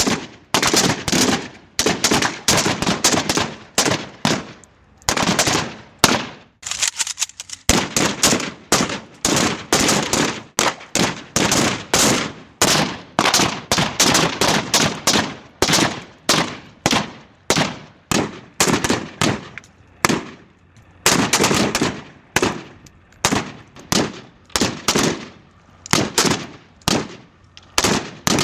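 AK-47 assault rifle (7.62×39mm) firing fully automatic in short bursts, with brief gaps between them.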